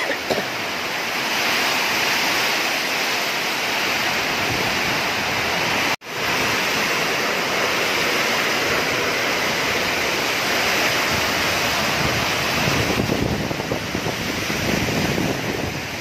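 Heavy thunderstorm rain pouring down in a strong wind, a steady loud rush. The sound cuts out for an instant about six seconds in, and near the end gusts buffet the microphone with low rumbles.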